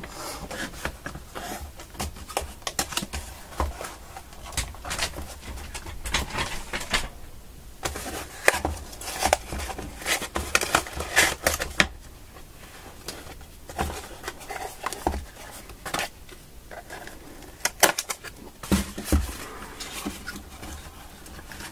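Cardboard packaging being handled by hand: irregular rustling, scraping and light clicks and taps as box flaps and inserts are pulled open and slid apart, with a few short pauses.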